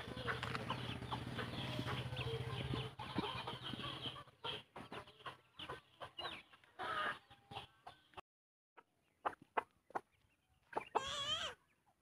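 Chickens clucking, with two wavering calls about seven and eleven seconds in, over scattered clicks. A low steady hum and dense background noise fill the first few seconds, and the sound drops out briefly after about eight seconds.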